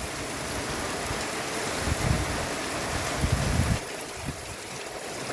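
Torrential rain pouring steadily in a violent thunderstorm, with low gusts of wind on the microphone about two and three seconds in. The rain and wind ease slightly after about four seconds.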